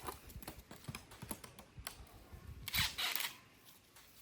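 Irregular light clicks and knocks, with a short rustling burst about three seconds in.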